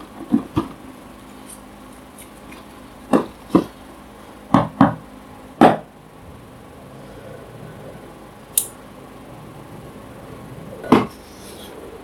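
Handling knocks and thumps from a cardboard shoebox and the shoes inside it during unboxing: about ten separate knocks, mostly in pairs, with a short high tick near the middle and a last thump near the end.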